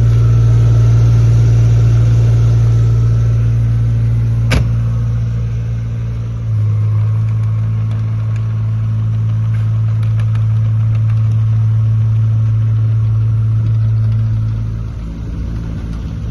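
JCB 8020 mini excavator's diesel engine running steadily at a constant speed, with one sharp click about four and a half seconds in. The engine note shifts slightly about six and a half seconds in and eases off a little near the end.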